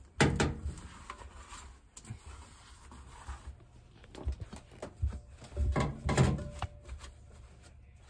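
Scattered knocks, clicks and rubbing from washing-machine parts being handled, with the busiest cluster of knocks a little past the middle.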